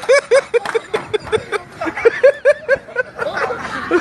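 A person laughing hard: a rapid run of short, high 'ha' syllables, about five a second, with brief breaks to draw breath.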